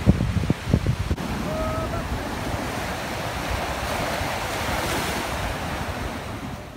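Ocean surf breaking and washing up the beach, a steady hiss that swells about four to five seconds in as a wave runs up the sand. Wind buffets the microphone during the first second.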